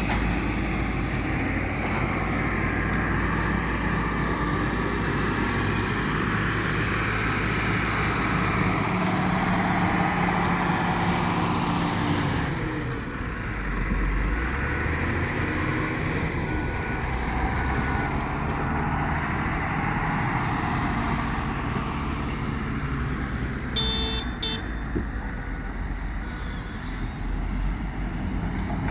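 Heavy diesel engines of an excavator and a tipper truck running under load, steady throughout, with the engine note dipping and changing about halfway through.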